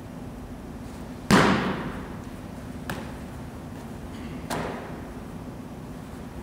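A snapped football smacking into a holder's hands, loud and echoing in an indoor turf facility. A small tap follows, then a second, softer thud about three seconds after the catch.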